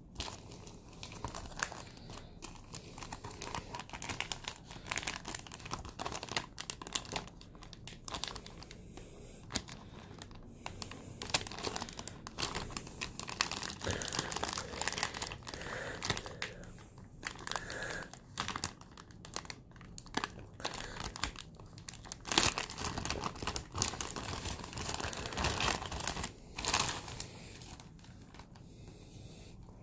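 Thin clear plastic bag crinkling and crackling as hands handle it, open it and pull out a flat printed sheet. The crackle comes in uneven spells, loudest through the middle stretch.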